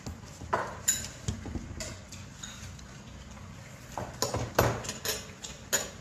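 Eating utensils clicking and knocking against dishes, a scatter of sharp taps bunched near the start and again in the last couple of seconds, with a quieter stretch in between.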